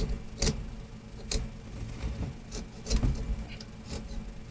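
Metal pick scraping and clicking against the seam of an old Model A klaxon horn's metal housing, digging out dirt and corrosion: a handful of short, separate scrapes and clicks.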